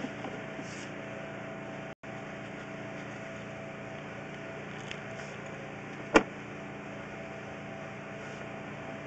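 Sewer inspection camera being reeled out of a cast iron sewer cleanout: a steady machine hum throughout, with one sharp knock about six seconds in.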